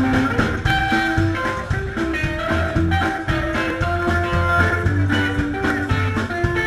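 Live swinging rockabilly band playing an instrumental passage: guitar picking over a walking upright double bass, with a steady beat of percussive strokes.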